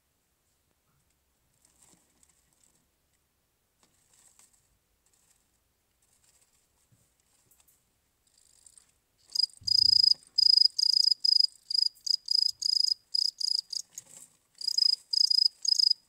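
Cricket chirping: faint and scattered at first, then from about nine seconds in loud, rapid runs of chirps at one steady high pitch, broken by short pauses.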